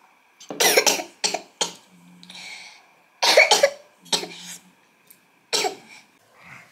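A woman coughing repeatedly in three short fits of a few coughs each, with quieter throaty breaths between them.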